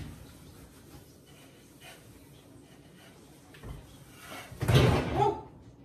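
An over-the-range microwave being lifted against its wall mount and the cabinet above: a knock, quiet shuffling and scraping, then a loud clatter about four and a half seconds in as the microwave lurches forward after catching on something.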